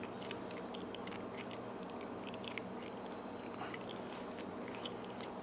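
Disc detainer lock pick working inside a padlock: faint, irregular small clicks and scrapes of the pick turning the discs, over a steady low hum.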